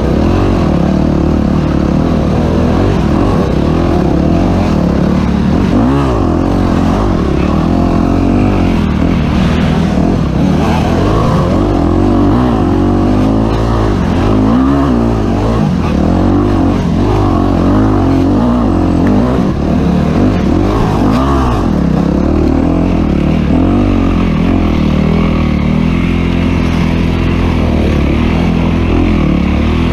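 Dirt bike engine under race load, its revs rising and falling again and again as the throttle is worked on and off.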